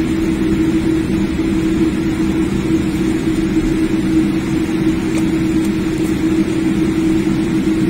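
Steady cabin noise inside a jet airliner taxiing with its engines at low thrust: a constant drone with a low, even hum.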